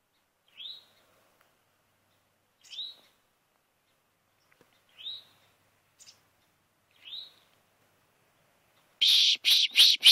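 A small songbird calling: four short upslurred chirps about two seconds apart, in answer to pishing. Near the end a person starts pishing again, a rapid run of loud hissed "psh" sounds, about five a second.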